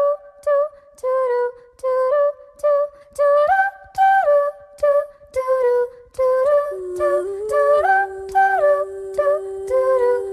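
A cappella singing: short, detached sung notes stepping up and down, each marked by a sharp click. From about six and a half seconds a low note is held steadily underneath them.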